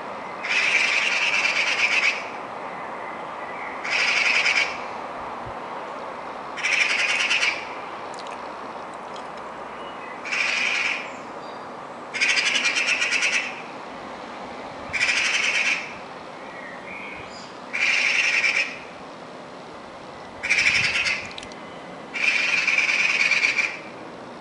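Eurasian magpie chattering: a harsh, rapid rattle given in bursts of about a second, nine times, every two to three seconds, over a steady low background noise.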